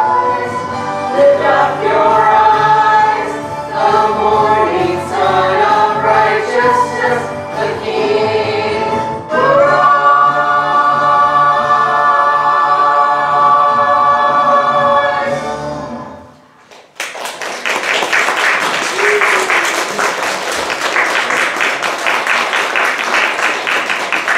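A small mixed church choir singing with accompaniment, ending on a long held final chord that fades out about sixteen seconds in. The congregation then breaks into steady applause.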